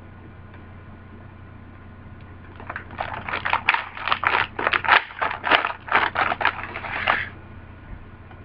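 Crunching of a crisp Keebler fudge stripe cookie being chewed. A run of sharp crackles, several a second, starts about three seconds in and stops after about four seconds.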